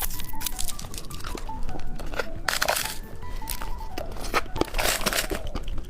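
Plastic lollipop wrapper crinkling and tearing as it is opened by hand, in irregular crackles, over soft background music.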